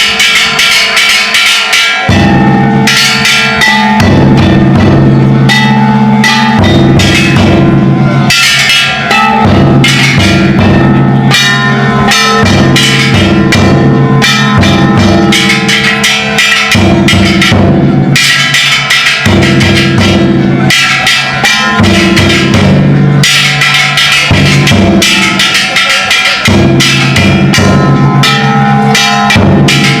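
Ishidori bayashi played on a festival float: a large taiko drum and hanging kane gongs struck together in a fast, dense rhythm. Very loud clanging metal over the drum beats, with ringing tones underneath.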